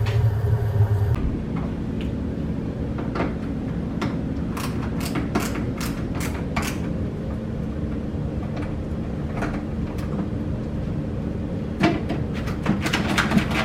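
Clicks and light knocks of hands working on a refrigerator, bunched a few seconds in and again near the end, over a steady low hum.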